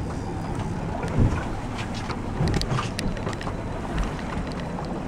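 Small boat's outboard motor running steadily, with wind buffeting the microphone and water splashing; a thump about a second in.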